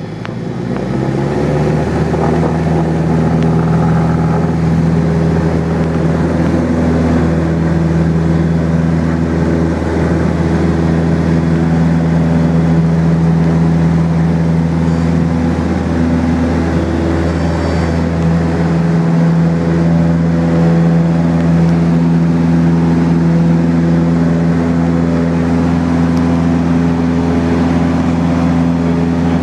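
Cessna light aircraft's piston engine and propeller coming up to full takeoff power over the first couple of seconds, then a steady loud drone through the takeoff roll and climb-out, heard from inside the cabin.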